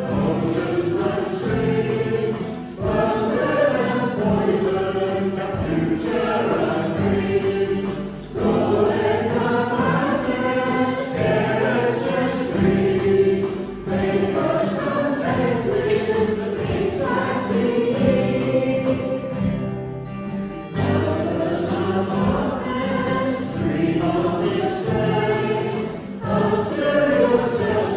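A congregation singing a hymn together with instrumental accompaniment, with short breaths between lines.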